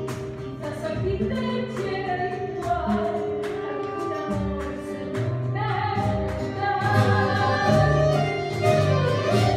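Live tango song: a singer's held, sliding melody over acoustic guitar accompaniment.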